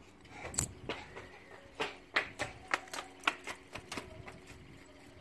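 Brass fidget spinner with two loose steel balls in slots in its arms, flicked and spun: a run of sharp metallic clicks, about three or four a second, as the steel balls knock against the brass. The clicks stop shortly before the end.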